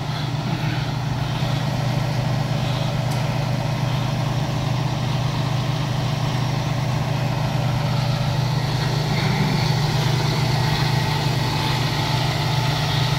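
Pierce fire engine's diesel engine idling steadily, a constant low hum.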